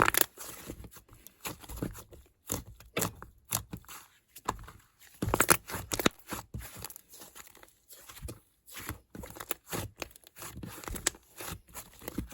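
Slime being worked by hand: an irregular run of sticky crackles, clicks and small pops as it is pressed, stretched and folded, with louder clusters at the start, around three seconds in and around five and a half seconds in.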